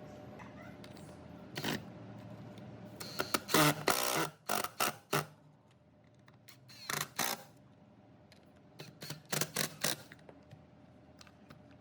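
Irregular sharp clicks and knocks of hard parts being handled, in short clusters with the densest run about three to five seconds in.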